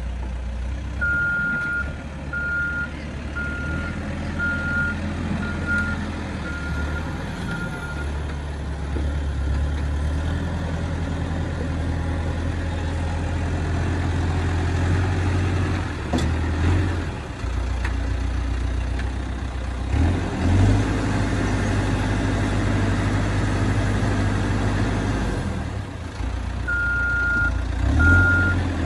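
Caterpillar 426F backhoe loader's diesel engine running, its note rising and falling as the machine works. Its reverse alarm beeps steadily, about one and a half beeps a second, for several seconds near the start and again near the end as it backs up.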